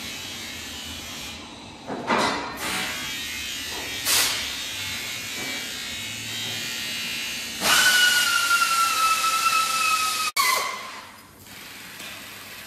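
Workshop noise: a steady hiss with two short bursts of noise, then a power tool runs loudly for about three seconds with a high whine that sinks slightly in pitch before it stops.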